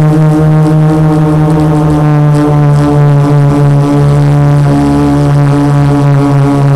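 Brushless motors and 12-inch carbon fibre props of a 450-size quadcopter, heard from on board, humming steadily in flight. The pitch holds nearly constant with a slight waver and beating between the motors.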